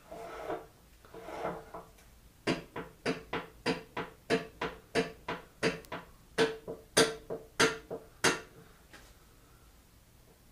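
A run of about twenty sharp metallic taps, roughly three or four a second, each ringing with the same note, starting a couple of seconds in and stopping abruptly a little after eight seconds. This is metal being struck on a machine part of a tool and cutter grinder during work to free or tighten a stuck part.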